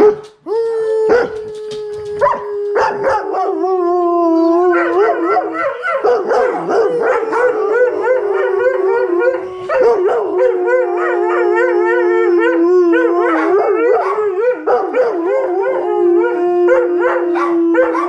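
Several dogs howling together. One holds a long, slowly falling howl, and from about three seconds in others join with wavering howls and yips.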